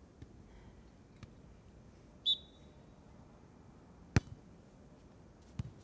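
A short, high whistle blast, then about two seconds later a sharp smack of a hand striking a beach volleyball, and a duller second hit on the ball near the end.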